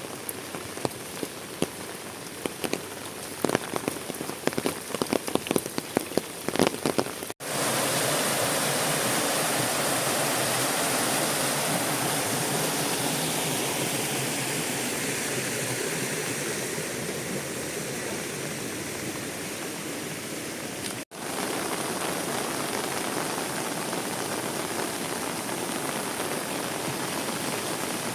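Heavy rain: at first a patter of many separate drops striking a surface over a steady hiss of rain. About seven seconds in the sound cuts out for an instant and gives way to a louder, steady rush of rain, with another brief dropout about three-quarters of the way through.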